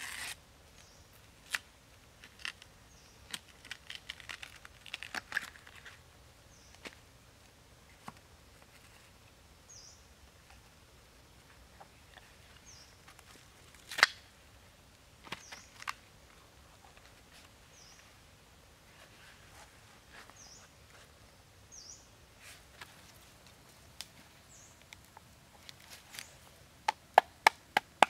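Fibrous banana stalk layers being peeled and snapped apart by hand: scattered rustles and clicks, with one sharp crack about halfway through. A small bird chirps now and then in the background. Near the end, quick chopping strikes on the stalk begin, about four a second.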